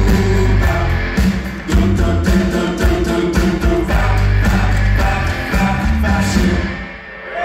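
Live rock band playing: drum kit, bass and electric guitars with a male lead singer. The music dies away near the end.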